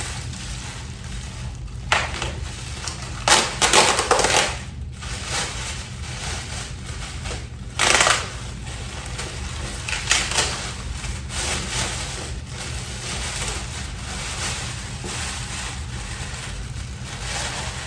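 Stool packaging being handled as parts are unwrapped: irregular bursts of crinkling and rustling, loudest a few seconds in and again around the middle, over a steady low hum.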